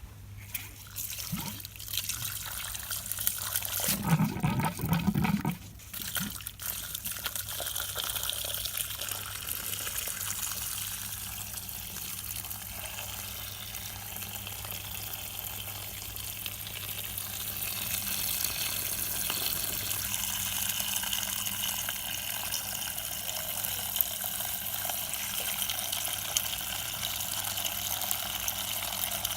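Whirlpool washing machine on a synthetic 60° programme taking in water: a steady hum comes on at the start and water rushes in. A louder low rumble comes about four to six seconds in.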